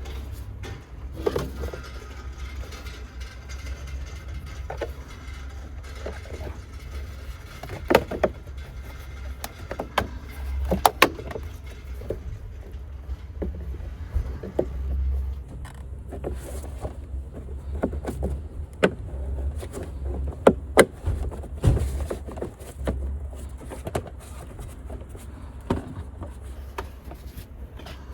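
Mercedes-AMG GT43 engine idling with a steady low hum. Irregular sharp clicks and knocks are scattered over it, not an even ticking rhythm.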